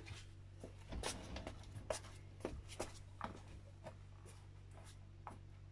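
Faint, scattered light clicks and rustles, a few each second, over a low steady hum.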